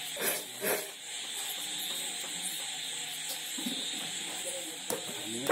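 Raw jackfruit being handled on a plastic tarp and pared against an upright fixed blade. Two short rustling scrapes come in the first second and a sharp knock near the end, over a steady high hiss.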